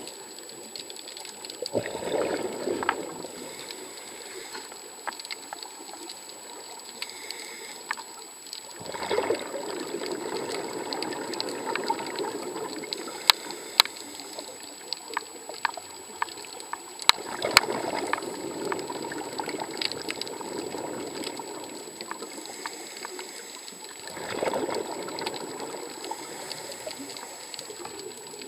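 Scuba diver's exhaled bubbles from the regulator, heard underwater: a bubbling rush four times, about seven seconds apart, with a steady watery hiss and scattered sharp clicks in between.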